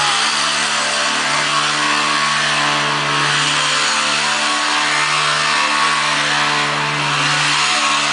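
A small ATV engine running loud and steady at high revs as the red four-wheeler spins circles through the snow, with only slight dips in pitch.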